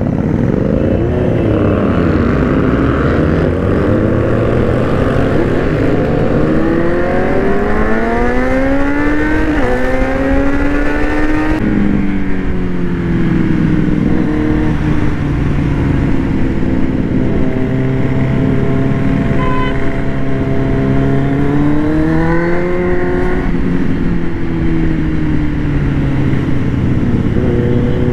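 Kawasaki Z900's inline-four engine accelerating through the gears, its pitch climbing and then dropping sharply at an upshift about twelve seconds in. It then runs steady, rises again and drops at another shift a little after twenty-two seconds. It runs through an aftermarket exhaust with the dB killer left in.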